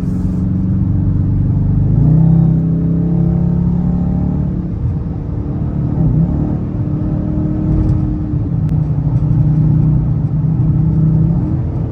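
Car engine running steadily with a low drone. Its pitch steps up and settles at a new level a few times as the car speeds up.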